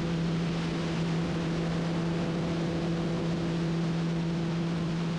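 Steady mechanical drone: a constant low hum over an even rushing noise, with no change in pitch or level.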